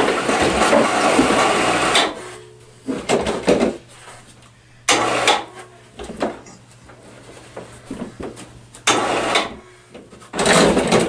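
Homemade motorcycle stair-lift rig clattering and scraping as its wheeled plywood platform is worked on the stairs: one long stretch of noise about two seconds long, then several short bursts with quieter gaps between.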